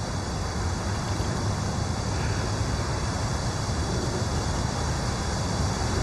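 Steady outdoor background noise: a low rumble under an even hiss, with no distinct events.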